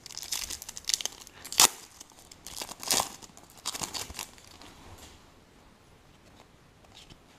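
Foil wrapper of a 2015 Select Soccer trading-card pack being torn open and crinkled by hand, with sharp rips about one and a half and three seconds in. The crinkling dies away about five seconds in.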